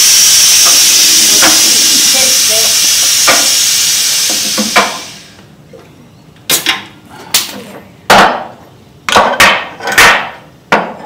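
A vehicle lift's hydraulic power unit running with a loud, steady hiss as it raises the truck, fading out about five seconds in. Then about seven sharp knocks at uneven intervals.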